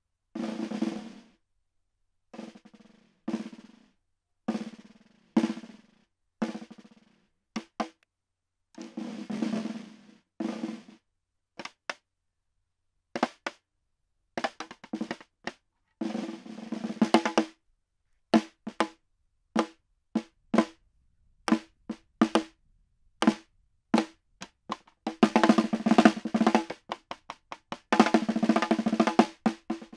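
Snare drum played in a pattern of short rolls and single strokes with silences between. There is a run of spaced single strokes in the middle, and longer, denser rolls near the end.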